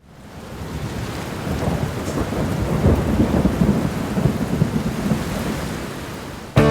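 Heavy rain with rolling rumbles of thunder, fading in from silence and building; music cuts in abruptly at the very end.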